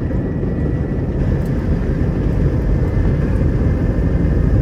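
Airbus A321 jet engines on departure: a steady low rumble that slowly grows louder, with a faint high whine.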